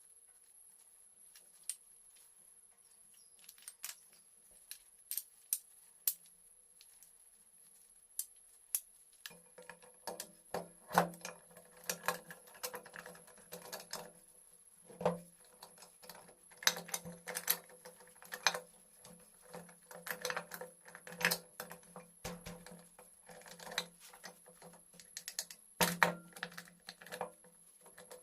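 Hand tools and small metal engine parts clicking, tapping and clinking irregularly while a Honda C70 engine is worked on. The clicks get busier and louder about a third of the way in, when a low steady hum also starts.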